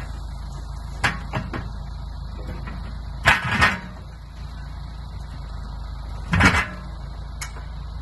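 Tractor engine running steadily while a Metavic forestry trailer's hydraulic crane loads logs, with heavy clunks of logs landing on the trailer bunks: a light knock about a second in, the loudest double clunk about three seconds in, and another near six and a half seconds.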